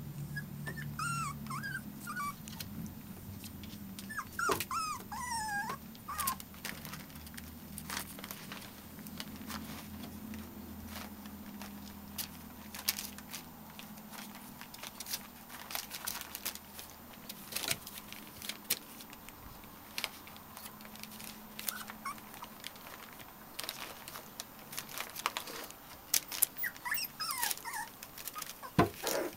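Bedlington whippet puppies play-fighting, giving short high-pitched whimpers and yips about a second in, again around four to six seconds, and near the end, over many small clicks and scuffles of paws and claws on the bedding and the wooden box.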